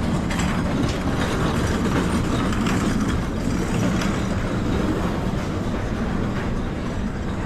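Light-rail train running on its rails: a steady, loud rumble with the clatter of wheels over the track.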